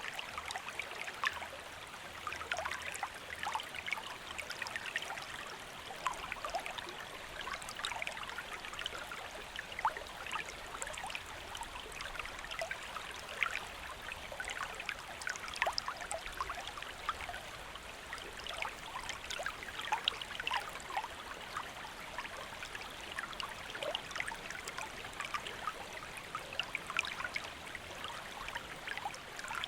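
Shallow stream flowing steadily over rocks, a continuous rushing with many small splashes and trickles.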